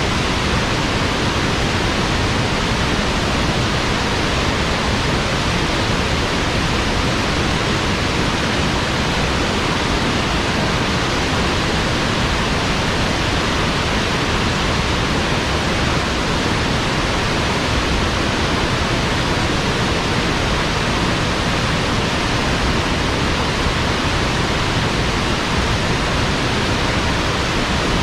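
A steady rushing noise sound effect that stays the same throughout, with no rhythm, tones or separate events.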